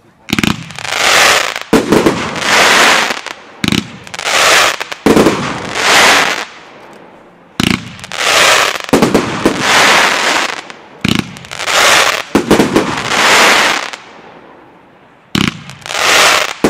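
A crackling firework battery firing: each shot goes off with a sharp pop, then bursts into a loud swell of dense crackling lasting about a second. The shots come in a series, one every one to two seconds.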